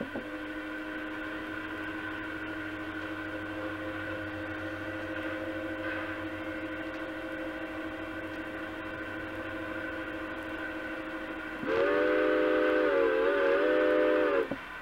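A steady one-note drone, then about 12 s in a louder train whistle sounds a chord of several notes for about three seconds, dipping briefly in pitch before it cuts off.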